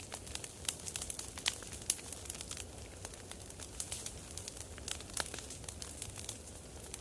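Campfire burning, the wood crackling with many irregular sharp pops over a low steady rumble.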